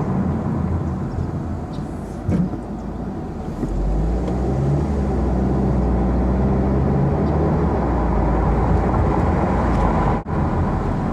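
Car driving with the convertible top down: steady road and wind rumble, with the engine note growing stronger about four seconds in.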